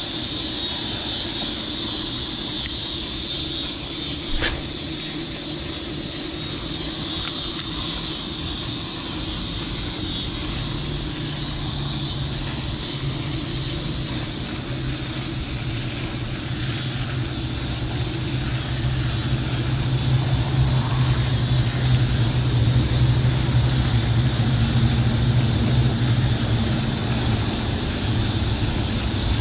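Steady outdoor background noise with a low motor hum that builds through the second half, as from a vehicle or engine, and a single click about four seconds in.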